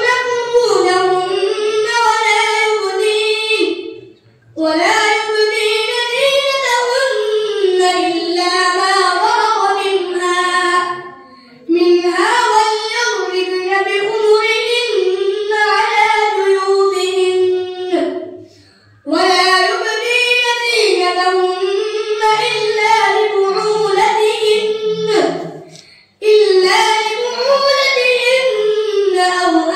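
A boy reciting the Quran in Arabic in the melodic, chanted tajweed style, in long drawn-out phrases with a short breath about every seven seconds.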